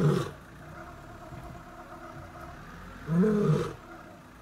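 Asiatic lion calling, each call a short moaning rise and fall in pitch: one right at the start and another about three seconds in. Under the calls is the steady low hum of an idling vehicle engine.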